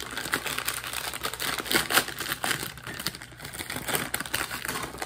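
A crinkly bag of Vitner's Crunchy Curls chips handled and squeezed in the hands, giving a dense run of crackles that is loudest about two seconds in.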